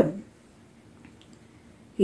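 A woman's voice trails off at the very start, then a pause of quiet room tone with a faint tick about a second in.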